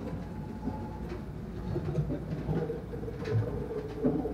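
Hita Gion bayashi festival music played by a women's ensemble, heard faintly from far off across the river: thin, scattered pitched notes over a steady low rumble.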